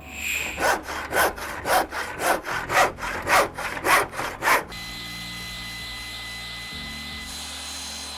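Hand saw cutting through wood: about eight even back-and-forth strokes, roughly two a second, that stop about halfway through. A steady hiss with a faint high whine follows.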